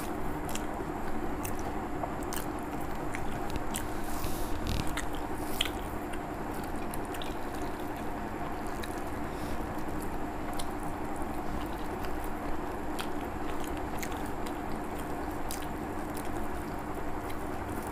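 A person chewing a mouthful of rice and egg, with small wet mouth clicks and the squish of fingers mixing rice on a plate. A steady hum runs underneath.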